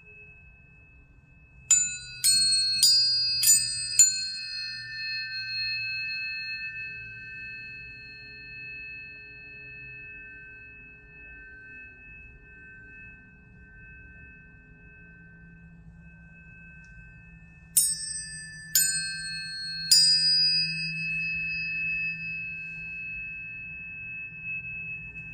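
Tuning forks struck one after another: five quick strikes about two seconds in and three more later on. Each leaves clear, high, pure tones ringing and slowly fading, over one steady high tone that keeps sounding throughout.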